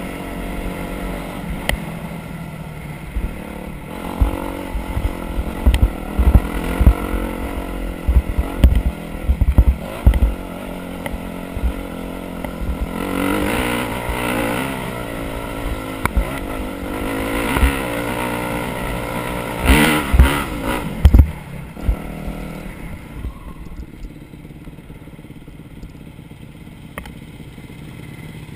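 Off-road vehicle engine running over a rough trail, revving up and down twice in the middle, with repeated knocks and clatter over the first half. It settles to a lower, steadier run for the last few seconds.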